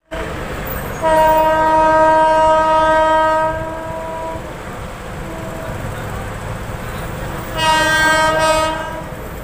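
An approaching train's horn sounds two long steady blasts, the first about three seconds long starting a second in and the second shorter near the end, over a low steady rumble.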